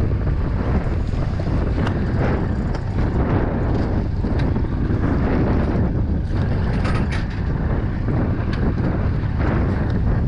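Steady wind buffeting the camera microphone on open water, with a few light clicks and knocks scattered through it.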